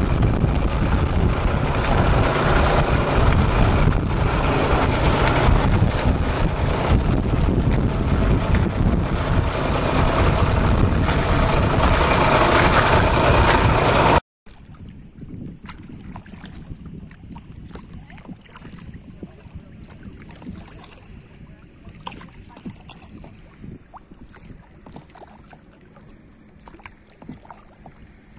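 Loud, steady wind buffeting the microphone. About halfway through it cuts off suddenly, and a much quieter stretch follows with only faint scattered ticks and knocks.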